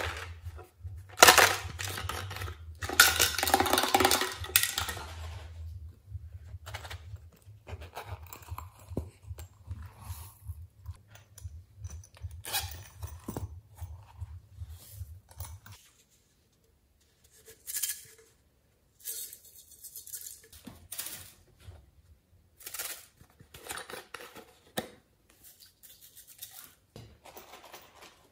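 Hands handling small plastic containers over a glass dish of slime: a plastic bottle shaken out and a zip pouch opened, with small beads and sprinkles tipped into the dish. It comes as a string of short rustles, clicks and scrapes, loudest a second or so in. A low steady hum stops about halfway through.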